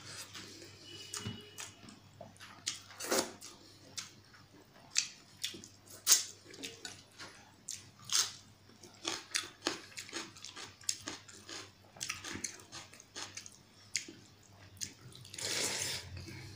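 Close-up wet eating sounds of pakhala, cooked rice soaked in water, eaten by hand: chewing and sharp lip smacks at an irregular pace, with wet squishing of the watery rice. There is a longer wet rush of sound near the end.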